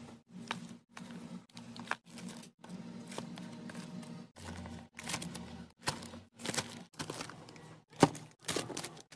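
Plastic refill pouches and plastic-wrapped packs of baby wipes being handled and set in place: crinkling plastic with quick taps and knocks as each packet goes down, broken by several brief silent gaps.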